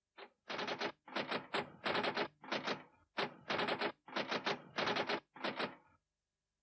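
Typewriter keys clacking in about a dozen quick bursts of strokes, as a typing sound effect for text appearing on screen. The strokes stop about a second before the end.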